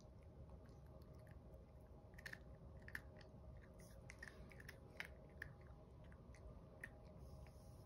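Chihuahua puppy chewing kibble gently: faint, irregular little crunches, a dozen or so spread over a few seconds.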